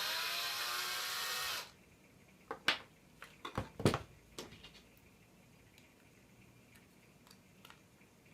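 Electric drill spinning up and running for about a second and a half, then stopping suddenly, followed by several sharp knocks and clicks of handling.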